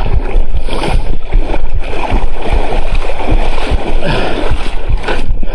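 Handling noise on a DJI Osmo Action 4 camera's microphone as the camera is swung about: a loud, muffled rumble broken by many irregular low thumps.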